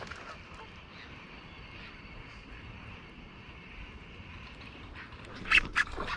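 Steady outdoor background hiss and low rumble, then about five and a half seconds in a few loud sharp knocks and splashes as a pike hits the topwater rat lure.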